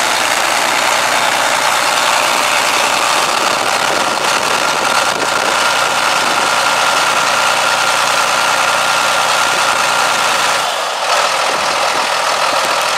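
John Deere 8400 tractor's six-cylinder diesel engine idling steadily, with a thin steady whine over the engine sound for most of the time and a brief dip near the end.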